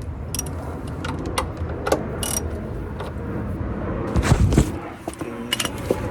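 Sharp metallic clicks and clanks of a wrench working an oil drain bolt loose under a car, with a heavier thump about four seconds in, over a low steady rumble.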